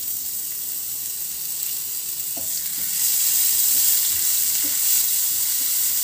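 Cumin and carom seeds, chilli flakes and coriander leaves sizzling in a spoonful of hot oil in a nonstick pan while a spatula stirs them, a tempering for the dish. The sizzle is steady and gets louder about three seconds in.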